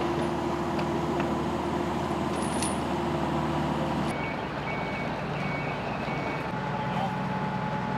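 Heavy diesel lorry and plant engines running steadily; about halfway through, a lorry's reversing alarm beeps about twice a second for a couple of seconds.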